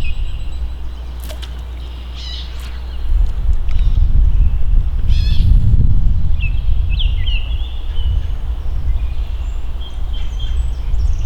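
Small birds chirping and trilling in short calls, over a loud, uneven low rumble that carries most of the level.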